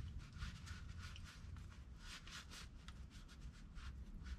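Faint, scratchy rubbing strokes as a grimy brake caliper slide pin is rubbed clean by hand.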